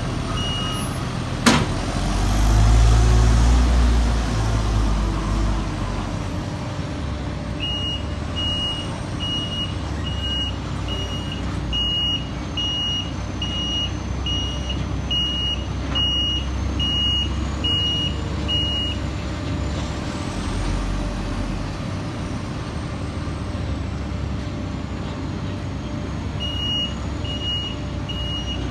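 Heavy diesel paving equipment running, the engine rumble swelling for a few seconds early on, with a sharp clank about a second and a half in. A reversing alarm beeps steadily at one pitch for about ten seconds in the middle and starts again near the end.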